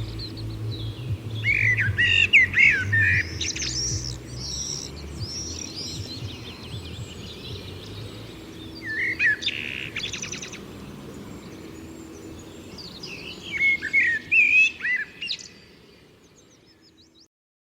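Birds chirping and twittering in three quick bursts over a low background hum that fades away, then the sound cuts off abruptly near the end.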